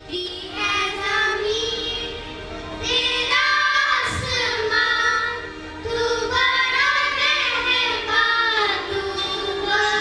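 A group of children singing a Hindi song together.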